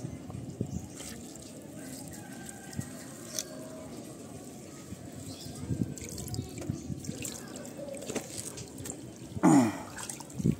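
Water dripping and trickling with scattered small splashes, and one louder whoosh near the end.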